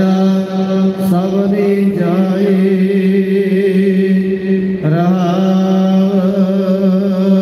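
Sikh devotional chanting of Gurbani, a voice wavering and shifting pitch over a steady held drone note, amplified through the hall's loudspeakers.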